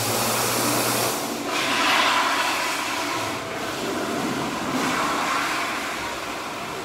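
Electric hand dryer blowing: a steady rush of air, with a low motor hum under it for about the first second.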